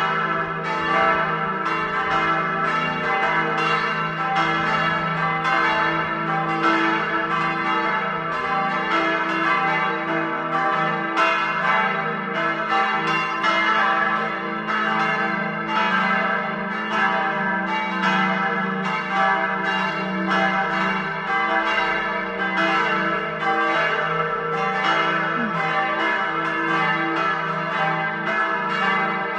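Full peal of a village church's four swinging bells, tuned e' g' a' c'', ringing together. It is a steady, overlapping stream of strikes, several a second, over a lasting hum of the bells' tones.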